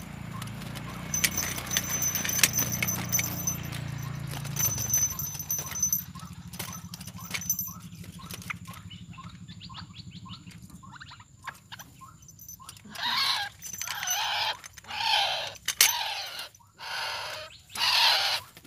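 Grass and leaves rustling and a wire-mesh cage trap rattling as it is handled. There are scattered clicks, then five loud bursts of rustling in the last five seconds.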